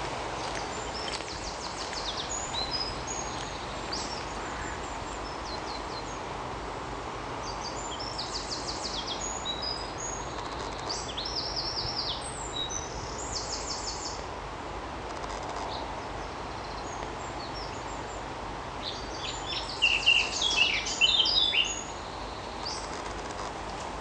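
Songbirds singing in short, high, varied phrases, with the loudest burst of song about twenty seconds in, over a steady background hum of distant road traffic.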